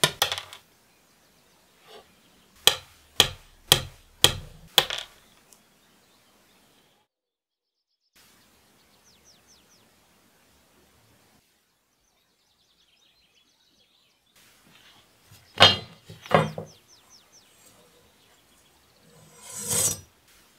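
Small steel bayonet parts set down on a wooden workbench: a run of five sharp knocks about two a second, and two more a few seconds later. Faint bird chirps sound in the quiet stretch between, and a short hissing swish comes near the end.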